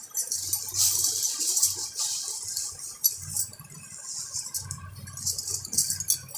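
Rustling and light clinking of small trinkets such as bangles and hair clips being handled and picked through, with soft bumps from the phone being moved about.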